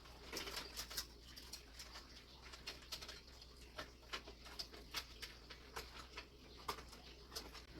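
Scattered light clicks and taps of hands working on the case fans inside a computer case, over a low steady hum.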